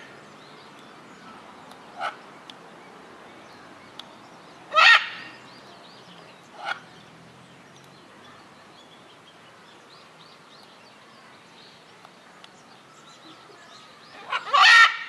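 Macaws screeching: a loud, harsh call about five seconds in and another just before the end, with two shorter, quieter squawks in between.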